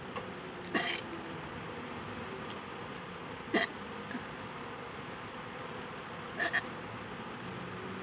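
A person's hiccups: three short, sharp ones about three seconds apart, the last a quick double, over a steady faint hum.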